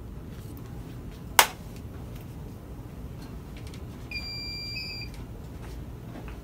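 A sharp click, then about three seconds later a single steady electronic beep lasting about a second from the dental X-ray equipment as a radiograph exposure is taken.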